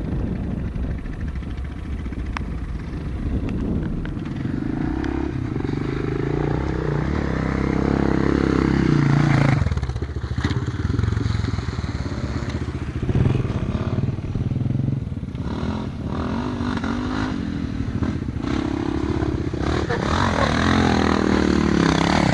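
Motocross dirt bike engine revving hard over gravel and mud, its pitch climbing until about ten seconds in, then dropping off suddenly. It builds again near the end, louder, as the bike comes up close.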